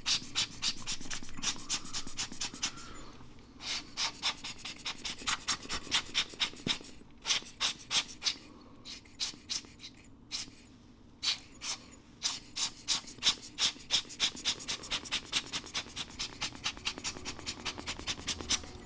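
Hand-squeezed rubber bulb air blower puffing air in quick runs of about four squeezes a second, with short pauses between runs, blowing dust out of a camera's open rangefinder mechanism.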